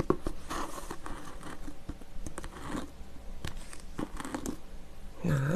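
Crinkling and rustling of a small packet, with light taps and clicks, as red capsaicin powder is put onto a bowl of noodles. A short hummed vocal sound comes near the end.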